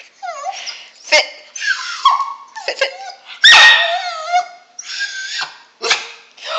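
Dog whining and yipping in a quick string of short, high calls that slide in pitch, with one louder, sharper call about three and a half seconds in.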